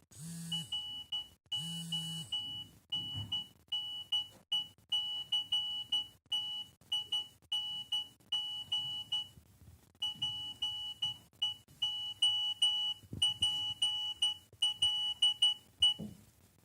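A Nokia 3108 mobile phone plays a beeping ringtone or alert through its small speaker. One high electronic beep at a single pitch repeats in quick groups, with a brief pause about nine seconds in, and stops shortly before the end. Two short low buzzes come in the first couple of seconds.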